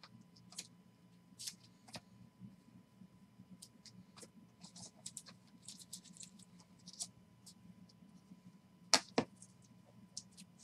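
Trading cards in plastic sleeves and top-loaders being handled and sorted, making many light slides and clicks of plastic, with two sharper knocks about nine seconds in.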